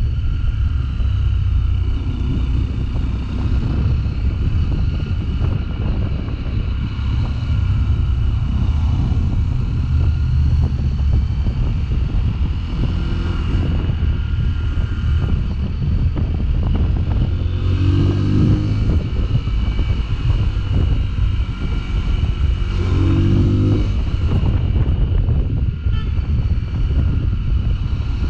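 A 2021 Sinnis Terrain 125's single-cylinder engine running while riding, with wind on the microphone. The engine note rises briefly twice, a little past the middle and again a few seconds later.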